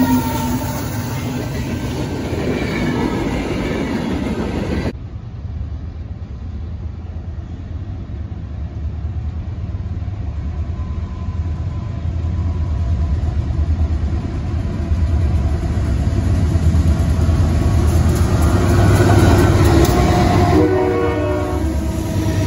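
Diesel freight locomotives passing close: a heavy engine rumble with rail and wheel noise. About five seconds in the sound cuts to a second train approaching, its rumble building, and a locomotive horn sounds near the end as the lead unit goes by.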